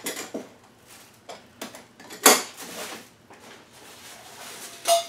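Camping gear being handled: a few light knocks from a metal cook pot and its cups, then rustling as a hand digs into a backpack. One louder scraping burst comes about two seconds in.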